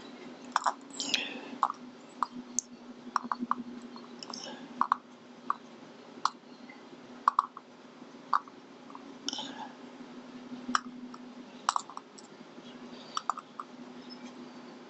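Small metal parts of a Goal S pin-tumbler lock clicking and tapping as its very small pins are worked out of the lock one at a time: irregular, sharp little clicks, some in quick pairs, over a steady low hum.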